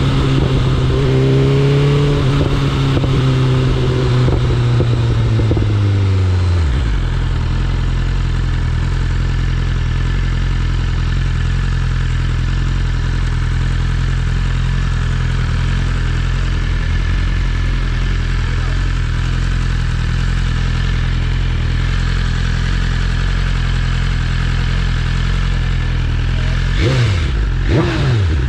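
BMW S1000RR's inline-four engine, its note falling as the bike slows, then idling steadily for about twenty seconds. Near the end the throttle is blipped in several quick, sharp revs.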